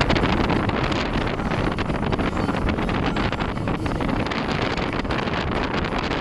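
Wind buffeting the microphone of a camera filming from a moving vehicle, with the vehicle's engine and road noise beneath it: a steady, heavy rumble with no letup.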